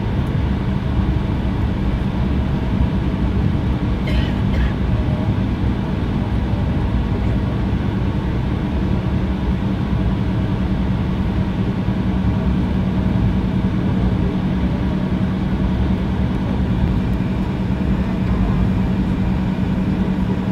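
Inside the cabin of an Embraer 170 taxiing, its General Electric CF34 turbofans at low taxi thrust: a steady rumble with a held engine hum that grows a little stronger in the second half.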